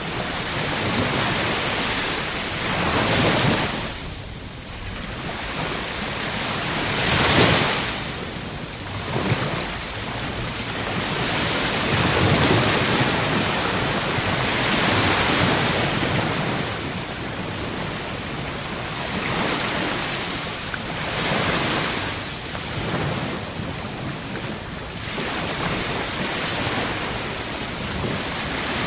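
Ocean surf: waves washing in, swelling and ebbing every few seconds, with the loudest surge about seven seconds in.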